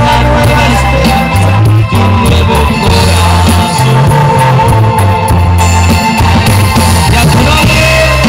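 Live band playing amplified music through a stage PA, with a heavy bass line of held notes that shift in pitch every second or so.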